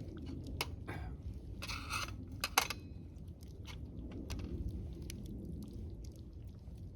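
A person tasting and eating fresh-cooked camp food. A few sharp clicks and a brief scrape of utensils against cookware come in the first three seconds, the loudest about two and a half seconds in, then chewing.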